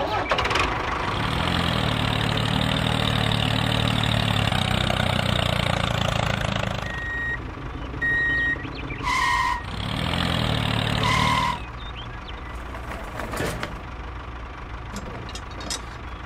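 Tractor engine running for several seconds, then two short beeps and two horn honks with the engine briefly again. After that it goes quieter, with a few small clicks.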